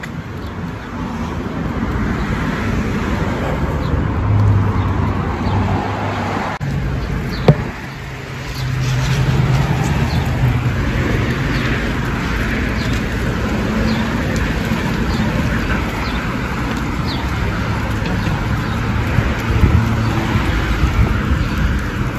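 City street traffic: cars driving past, their engine hum swelling and fading several times, with one sharp click about seven and a half seconds in.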